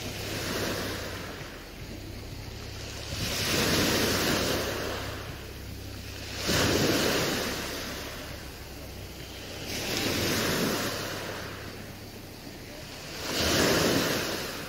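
Slow, rhythmic swells of rushing noise, four of them about three and a half seconds apart, each rising and falling away. A low steady hum lies under the first half and stops partway through.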